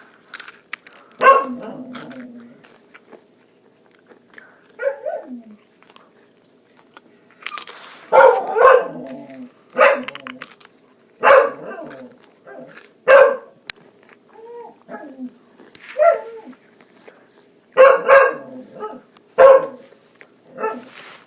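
A dog barking: short single and paired barks every second or two, with quiet gaps between them.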